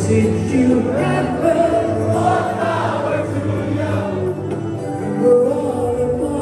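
Christian rock band playing live, with singing and a steady bass line.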